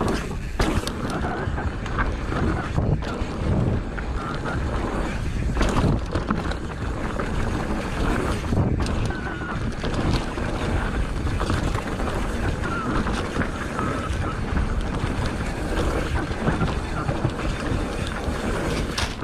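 Mountain bike ridden fast down a dirt forest singletrack: steady wind buffeting on the microphone and tyres rolling over dirt, with frequent knocks and rattles from the bike over bumps.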